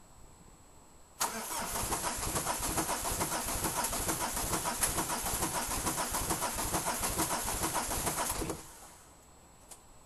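Peugeot 306 turbodiesel being cranked over by its starter motor, with an even, rhythmic churning for about seven seconds that stops abruptly without the engine firing. It is a hard cold start that the owner puts down to bad injectors.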